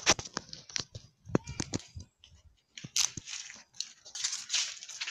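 Irregular scuffs, crunches and clicks of footsteps in sandals on a gritty concrete path, mixed with rustling and knocks from a handheld phone being carried while walking.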